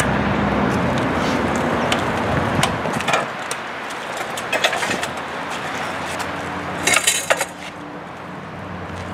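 Electric hand truck running forward under throttle with a low motor hum, with scattered metal clinks. A louder metal clatter comes about seven seconds in as its steel toe plate slides under the metal frame of a small pump.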